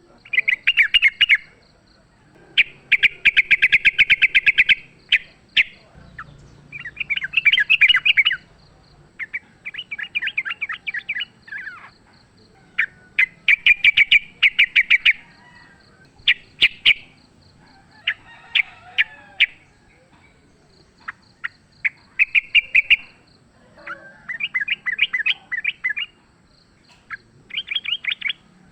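Yellow-vented bulbuls (trucukan) chattering in quick bouts of rapid repeated notes, each bout a second or two long, one after another. It is the agitated fighting chatter of rival birds.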